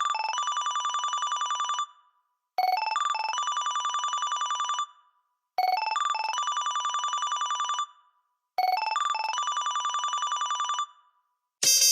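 An LG VX5600 (Accolade) phone ringtone imitating a telephone ring. Each ring is a few quick electronic beeps followed by a fast trill lasting about two seconds. It repeats four times, once every three seconds, with short silent gaps between rings.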